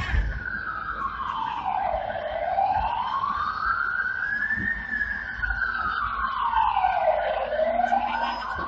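Emergency vehicle siren sounding a slow wail, its pitch rising and falling about every five seconds, over a low rumble.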